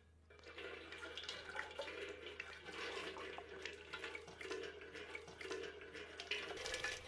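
Water poured from a brass jug over a person's feet, splashing and pattering into a brass basin with a perforated centre; a steady splashing pour that starts just after the beginning.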